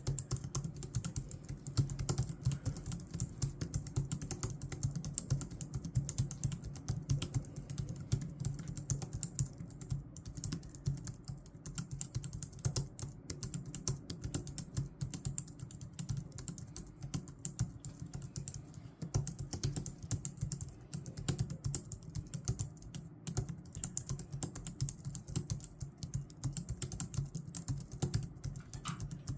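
Logitech MX Keys keyboard being typed on fast and without pause, many keystrokes a second.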